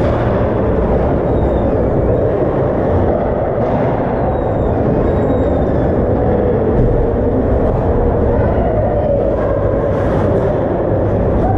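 Steady low rumble of ice-rink background noise, with a few faint high scrapes or squeaks from play far down the ice.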